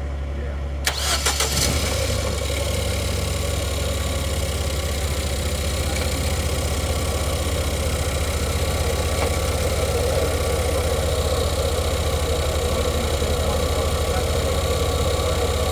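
Engine cooling fan switching on suddenly about a second in, with a few clicks, then running steadily with a loud rush of air over a steady low hum. It comes on while a bad connection at the fan relay is being checked.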